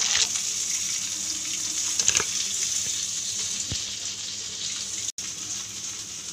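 Chicken pieces deep-frying in hot oil: a steady high sizzling hiss that slowly fades, with a light knock about two seconds in.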